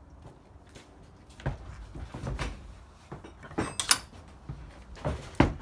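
Several separate knocks and clunks of a ceramic hob and tools being handled, with a sharp clatter a little past the middle.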